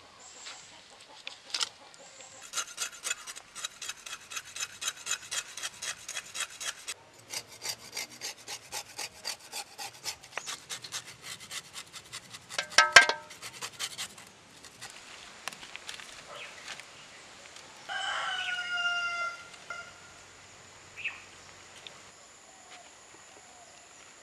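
Knife blade scraping the scales off a large whole fish in quick, even strokes, a few a second, with a sharp ringing knock of the blade about halfway through. Later a rooster crows once, briefly.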